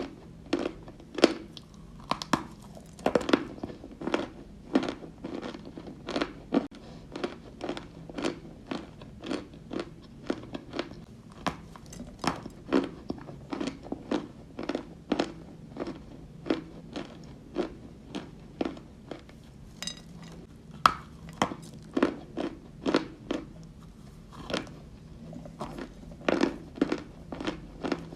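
Close-up chewing of Turkestan white edible clay: a steady run of sharp crunches, somewhat under two a second, as the dry clay is bitten and ground between the teeth.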